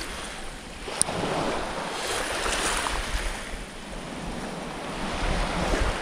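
Small waves washing at the shore, with wind rumbling on the microphone, a little stronger near the end. A single sharp click about a second in.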